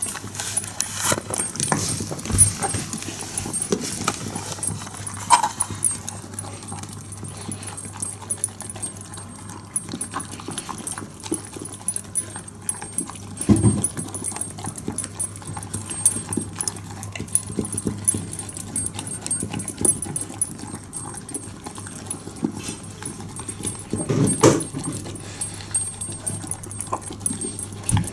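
Labradoodle eating soft, sausage-like meat dog food from a stainless-steel-lined bowl: quick, irregular chewing, licking and smacking, with two louder knocks, about 13 seconds in and near 24 seconds.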